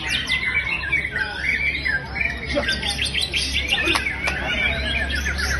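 Captive white-rumped shama (murai batu) in full song: a fast, varied stream of whistles and chattering notes, ending in a rapid run of repeated notes, over a steady low hum.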